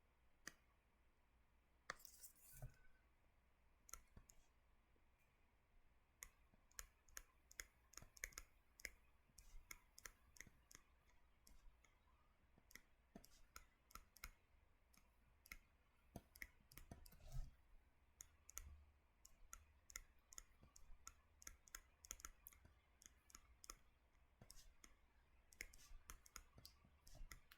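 Faint, irregular clicks and taps with near silence between them.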